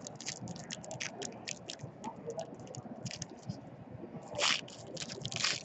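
A trading-card pack wrapper crinkling and being torn open by hand: a run of small crackles, then two louder rips near the end.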